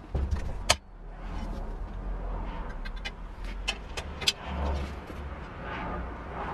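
Bicycle rear wheel spinning freely in its frame, with a low rumble and sharp metallic clicks, the loudest about a second in and two more around four seconds in.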